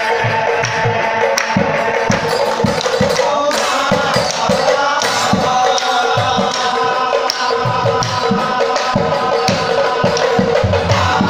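Assamese nagara naam: men singing a devotional chant together over the steady beat of nagara drums, with cymbals jingling along.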